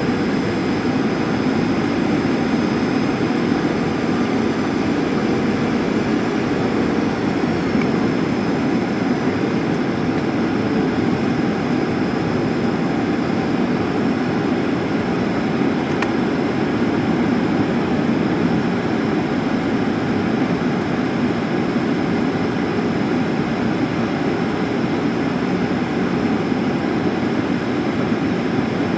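Steady in-flight noise of a Boeing 737 during its arrival: engine drone and rushing airflow heard as an even, unbroken roar.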